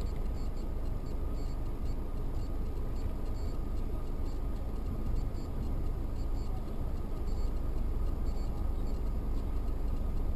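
Steady engine and road noise of a car driving on a snow-covered street, picked up inside the cabin by a dashcam.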